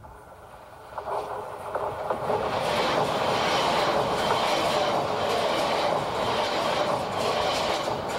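Series 400 Tsubasa mini-shinkansen train passing close by on curved track. The rush of its wheels and cars builds over the first couple of seconds and then holds loud, with a regular clatter about once a second as the cars go by.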